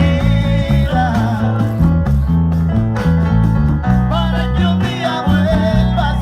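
Latin band music by a Cuban group: a sung lead vocal over a prominent bass line and guitar.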